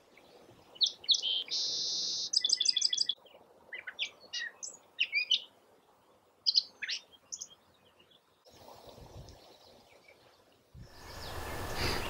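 A songbird sings a run of short, varied phrases of chirps, a rapid trill and one buzzy note, then goes quiet. Near the end a steady outdoor background noise comes up.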